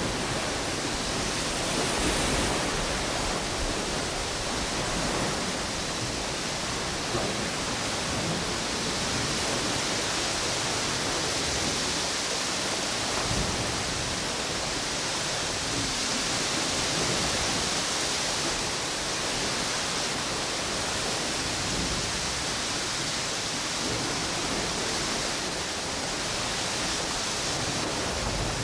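Ocean waves washing onto a beach under strong wind, with palm fronds rustling: a steady rush of noise that swells gently and eases off.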